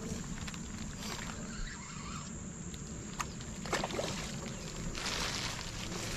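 A hooked peacock bass splashing and thrashing at the surface near the bank while being played on a rod, most noticeably in the second half, over a steady low rumble.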